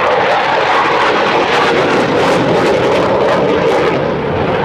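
Fighter jet flying a display pass overhead: loud, steady jet engine noise.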